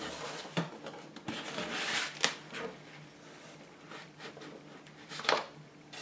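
Rustling, clicks and knocks of DJI Goggles and their packaging being handled, with two louder knocks: one a little over two seconds in and one near the end.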